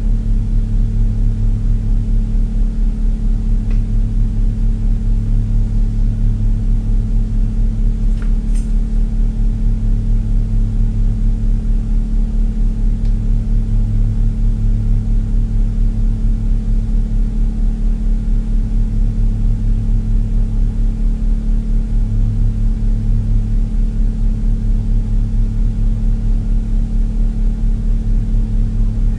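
A steady, loud low-pitched hum with a fast, even pulse, unchanged throughout.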